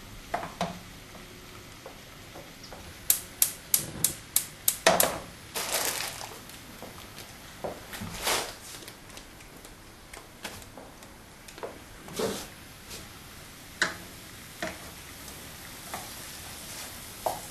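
Gas hob burner's electric igniter clicking, a quick run of about eight clicks a few seconds in, as the burner is lit under a frying pan. Scattered softer knocks of the pan and cookware being handled follow.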